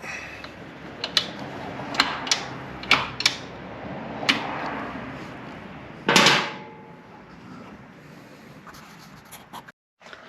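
Hand tools being handled during a motorcycle parts install: scattered sharp clicks and knocks, with a louder clatter about six seconds in.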